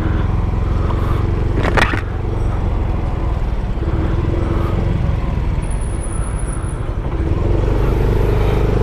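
Motor scooter's engine running as it rides slowly along a street, its pitch rising near the end as it speeds up. A single sharp knock comes about two seconds in.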